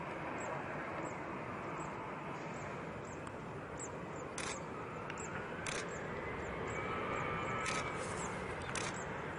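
Steady rushing engine noise of a twin-engine widebody jet airliner on low final approach, with a faint rising whine about halfway through. Sharp clicks come every second or so from about four seconds in.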